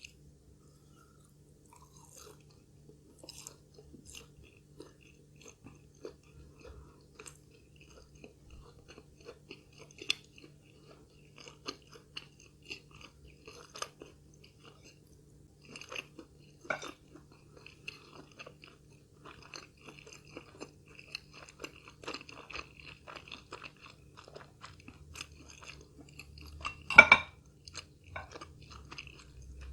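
Close-miked chewing of fried food: small crunches and wet mouth clicks come irregularly throughout. A single louder crunch, a bite, comes near the end.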